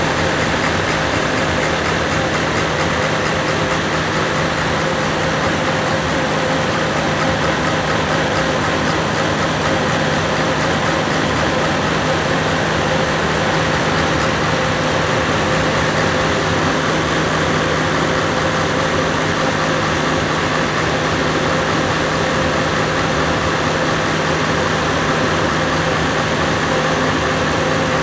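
Perkins 1106 six-cylinder diesel generator engine running at a steady speed while the droop adjustment on its injection pump is turned to cure the engine hunting.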